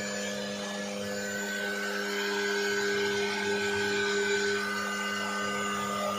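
CNC router spindle motor running steadily: an even hum with several held whining tones over a noisy hiss.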